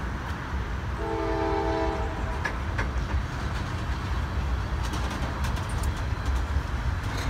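Freight train tank cars rolling past at close range: a steady low rumble of steel wheels on rail, with sharp clanks about two and a half seconds in and more often from about five seconds. A train horn chord sounds for about a second, about a second in.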